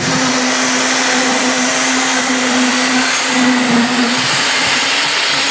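A motor-driven machine running steadily: a constant hum at one slightly wavering pitch under a loud, even hiss.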